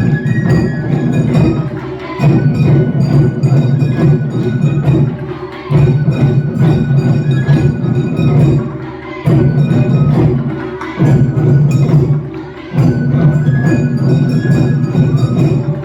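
Japanese taiko drum ensemble playing a dense, fast rhythm in loud phrases with short dips between them, over bright, high ringing tones.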